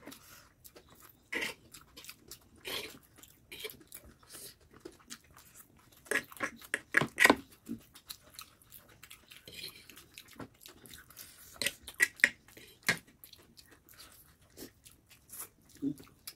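Close-up eating sounds of two people chewing chow mein noodles and fried chicken: irregular wet chewing, lip smacks and short clicks. The busiest, loudest stretch comes about six to seven seconds in.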